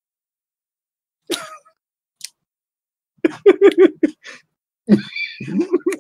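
A person laughing: a quick run of short, pitched bursts of laughter, then more laughter rising in pitch near the end, after a breath about a second in.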